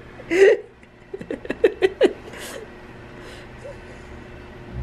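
A man's voice in short bursts of laughter and breathy exclamations, one loud burst near the start and a quick run of pulses about a second in.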